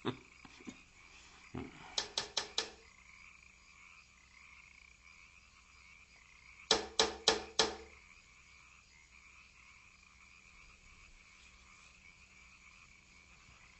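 Faint night ambience: a frog croaking in two quick runs of four croaks, about two seconds in and again about seven seconds in, over a steady faint high-pitched drone.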